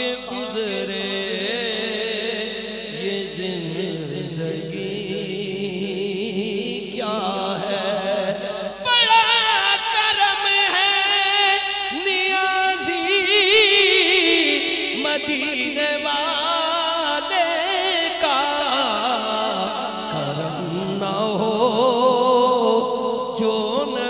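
A man reciting a naat, an Urdu devotional poem, in a chanted solo voice that holds long wavering notes. About nine seconds in the voice climbs into a louder, higher passage, then settles lower again.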